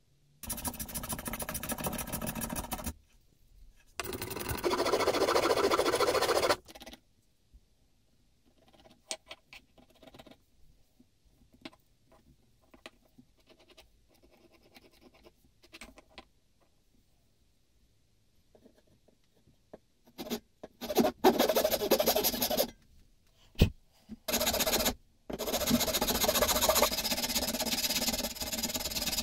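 A hand file scraping across the side of a boxwood hand-plane body in runs of strokes, the longest run near the end. In a quieter stretch in the middle there are only faint scratches and light taps as a pencil marks out the wood, and two other runs of scraping come near the start.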